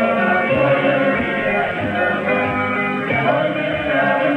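Music with singing received on a shortwave AM broadcast at 17745 kHz, played through an Eton Satellit 750 receiver, with no treble above about 4 kHz.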